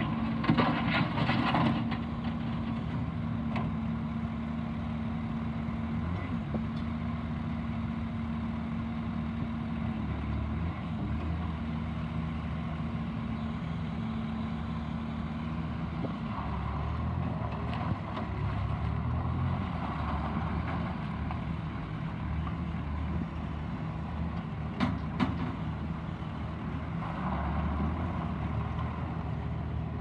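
Bobcat S510 skid steer loader's diesel engine running: a steady hum for the first ten seconds or so, then rising and falling in pitch as the loader works, lifting its bucket and driving. A few short knocks come near the start and about two-thirds of the way through.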